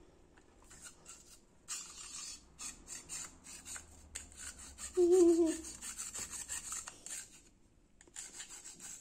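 A small bottle brush scrubbing back and forth inside the plastic intake tube of an aquarium filter, a scratchy rubbing that clears the tube's clogging holes. It comes in runs with short gaps, and a brief pitched sound about five seconds in is the loudest moment.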